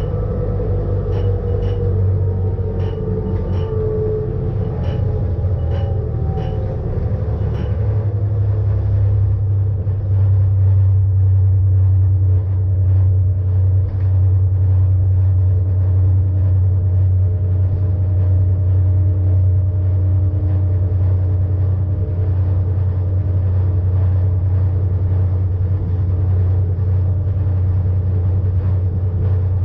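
ČSD class EM 29.0 electric rack railcar running on the cog track, a steady low hum with a whine that falls in pitch over the first few seconds. A regular light clicking, roughly one every two-thirds of a second, stops about eight seconds in.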